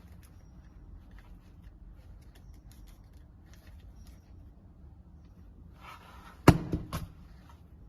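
Hand crimping tool pressing down on a Cat6 RJ45 pass-through plug: faint small handling clicks, then one loud sharp click of the crimp about six and a half seconds in, followed by two smaller clicks.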